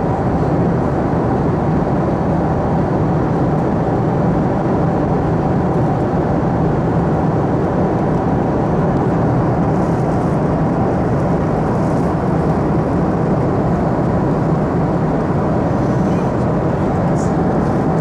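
Steady cabin noise of a Boeing 737-300 at cruise, heard inside the cabin: the even rush of air along the fuselage over a low, constant hum from its CFM56-3 turbofan engines.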